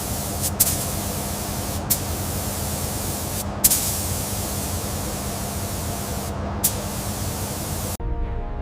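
Steady spraying hiss over a faint low hum, broken by a few brief sharp clicks. It cuts off suddenly near the end.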